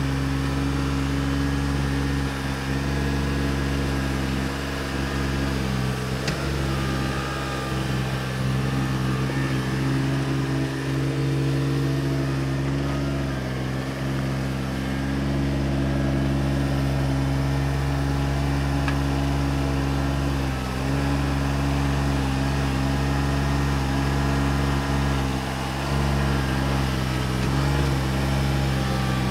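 John Deere 755 compact tractor's engine running steadily at working throttle, its pitch dipping briefly a few times as it takes load.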